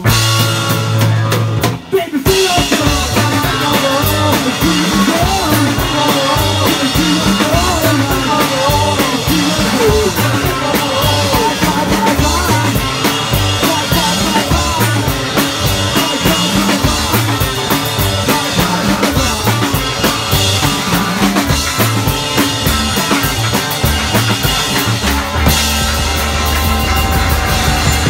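Live rock band (drum kit, electric bass and electric guitar) playing an instrumental passage with a driving drum beat. There is a brief stop about two seconds in, and near the end the band holds a long ringing chord.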